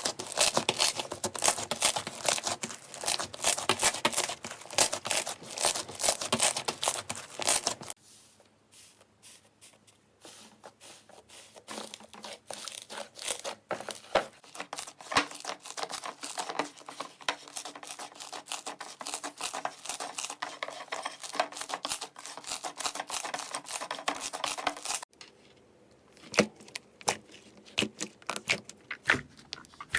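Slime being squeezed, pressed and stretched by hand, making dense crackling and popping clicks. The sound drops away abruptly about a quarter of the way in and again near the end, each time returning as quieter, sparser crackles.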